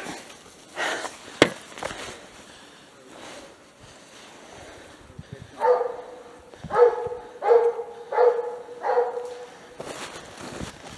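Coyote hound barking in a run of five calls, a little over one a second, starting about six seconds in. A sharp knock sounds about a second and a half in.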